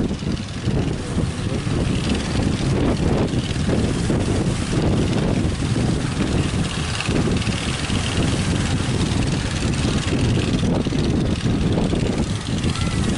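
Strong wind rumbling on the microphone over breaking surf, a steady loud roar with no pauses.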